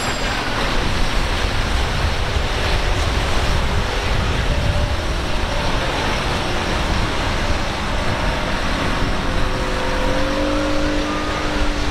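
Outboard motor on a small skiff running through choppy water, under a steady rush of surf and wind on the microphone. A faint engine tone rises slightly near the end.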